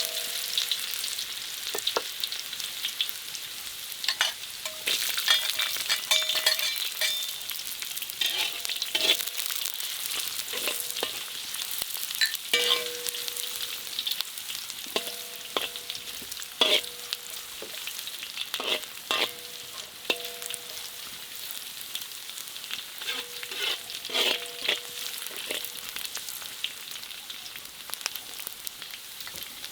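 Food sizzling in a hot pan while being stirred, with a utensil knocking and scraping against the pan and brief ringing tones from the metal, in clusters through the stretch.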